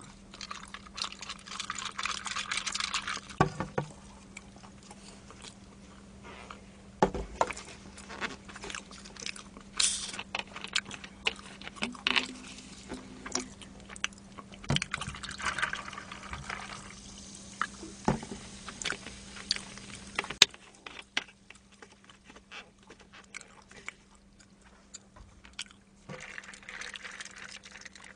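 Cola poured from a plastic bottle into a tall cup, fizzing, in a few separate pours. Scattered knocks and clicks of the cup and bottle being handled come between them.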